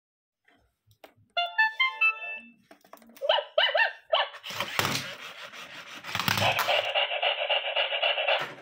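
Robot dog toy sounding off through its small speaker: a short electronic beeping tune, then a few electronic barks, then a noisy stretch with a couple of low thumps, and a bright steady electronic tune that holds until near the end.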